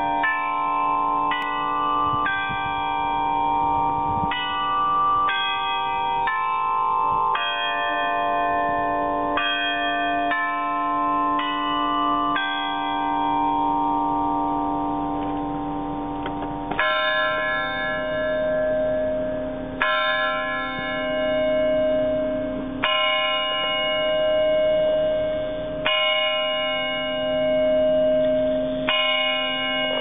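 Clock-tower bells: a tune struck on the tower's set of cast bells, notes about one a second, then from about seventeen seconds in a single bell striking slowly, five strokes about three seconds apart, each left ringing. The clock is striking the hour after its chime tune.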